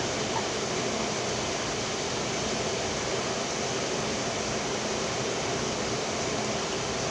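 Steady whooshing noise with a faint low hum, unchanging throughout.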